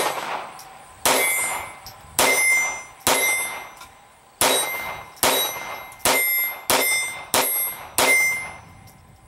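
Hi-Standard Victor .22 LR semi-automatic target pistol firing standard-velocity rounds: about ten single shots at roughly one a second, each sharp crack followed by a short ringing tail.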